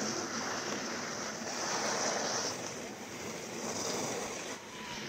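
Giant slalom skis carving hard snow, their edges scraping and hissing through the turns in swells, with some wind on the microphone.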